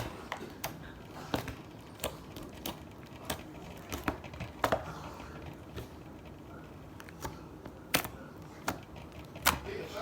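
Metallic glue slime being kneaded and squished by hand, giving irregular sharp clicks and pops, about one or two a second.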